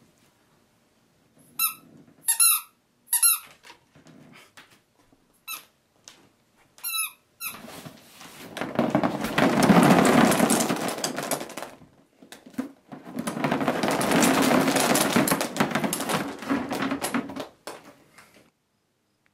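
Five short, high squeaks in the first seven seconds, then small rubber ducks pouring out of a cardboard box into a dog bed in two long rushes, the second starting about a second after the first ends. A few stray ducks tick down at the end.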